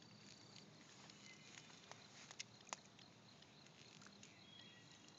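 Near silence: faint outdoor ambience with a thin, high insect-like tone that fades about a second in, and a few faint, sharp clicks a little past the middle.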